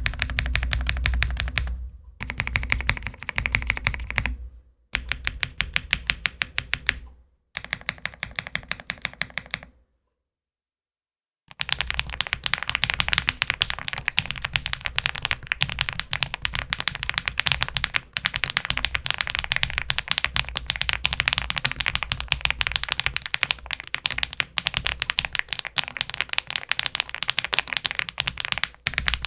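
Fast typing on a gasket-mounted Meletrix Zoom65 mechanical keyboard with a polycarbonate plate, full foams, lubed KTT Halu Halo switches and GMK keycaps, giving a poppy, foamy clack. Four short bursts of keystrokes with brief breaks, a pause of about a second and a half, then continuous typing.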